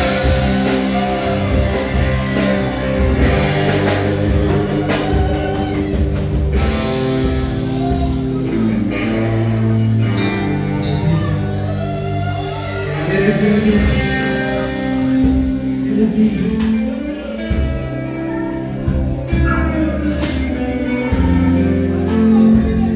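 Live worship-band music led by guitar over a steady beat, with some singing.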